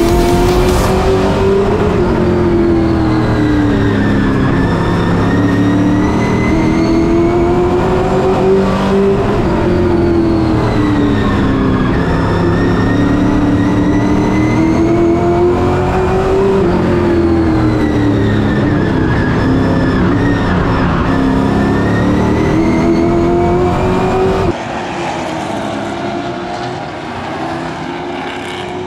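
Race truck engine at racing speed on the oval, its pitch climbing and then falling off in a repeating cycle about every seven to eight seconds as it works around the track. Near the end the sound drops suddenly to a quieter, thinner engine noise.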